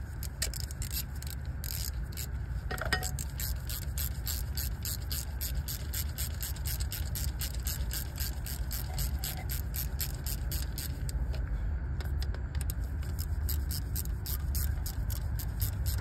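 Ratchet turning a 5 mm Allen socket on an extension, clicking quickly as it runs down the injector harness bracket hold-down bolts; the clicks thin out near the end. A steady low rumble sits underneath.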